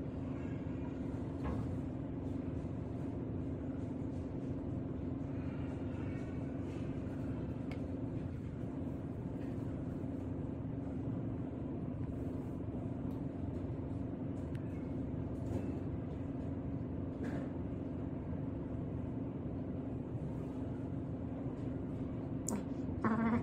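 A steady low hum with a constant droning tone over a low rumble, unchanging throughout.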